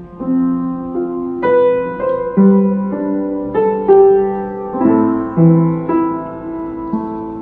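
Upright piano played slowly: a melody over held chords, with a new note or chord struck about once a second.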